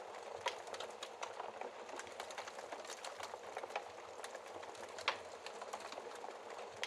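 Wood fire crackling in a fireplace: a steady hiss of burning with many small irregular pops and snaps, one sharper pop about five seconds in.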